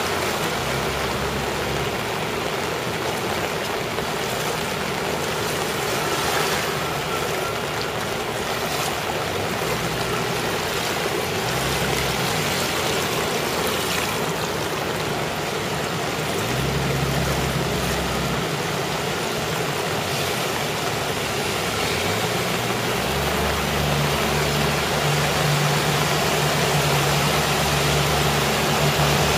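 Cars driving slowly through deep floodwater: a steady rush and splash of water, with car engines running underneath, one engine coming in louder over the last few seconds as a car pushes a bow wave through the flood.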